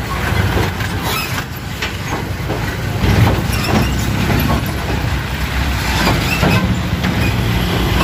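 Diesel trucks passing over a railway level crossing: engines running with repeated clunks and rattles as the wheels and bodies jolt across the rails.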